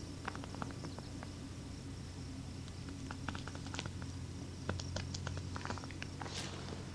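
Scattered light clicks and ticks in short irregular runs, from a spinning reel and rod being handled while jigging, over a low steady hum. A short swish comes near the end.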